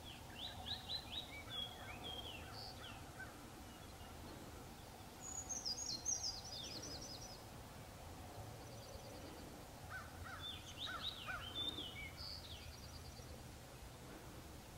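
Faint songbirds singing: three short phrases of quick, falling notes a few seconds apart, over a steady low background noise.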